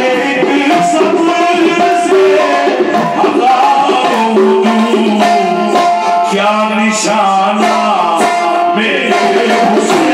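Qawwali ensemble performing a manqabat: harmoniums holding and moving between notes under male singing voices, with steady rhythmic hand-clapping.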